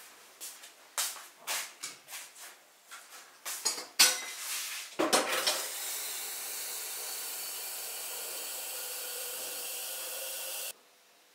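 Clinks and knocks of metal kitchenware being handled at a sink, then tap water running into a stainless-steel kettle as a steady rush that starts about five seconds in and stops abruptly near the end.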